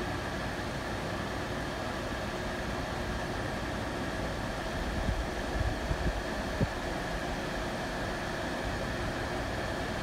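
Arctic King WPPD14CT9N portable air conditioner running, a steady fan-and-compressor hum holding several constant tones. A few low thumps and a sharp click come in the middle.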